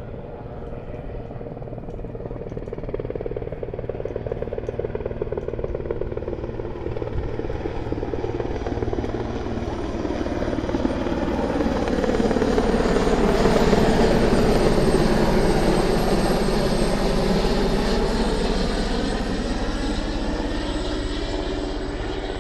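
Marine Corps presidential helicopter flying an orbit after a waved-off landing, its rotors and turbine engines growing louder as it passes closest about two-thirds of the way through, the pitch bending downward as it goes by, then fading slightly.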